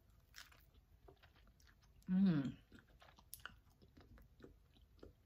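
Close-up chewing and wet mouth clicks of a person eating a pineberry, a soft white strawberry. About two seconds in there is a short hum of the voice, falling in pitch, which is the loudest sound.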